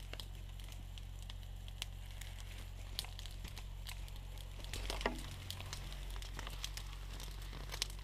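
Rustling and crackling of potato plant leaves and stems brushing together, with scattered small clicks and a slightly louder rustle about five seconds in, over a low steady hum.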